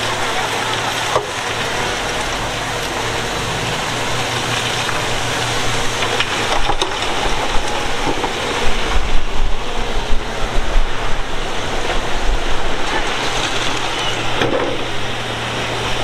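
Heavy diesel earthmoving machinery running with a steady engine drone. It grows louder and rougher from about halfway, with uneven surges of engine load, then eases near the end.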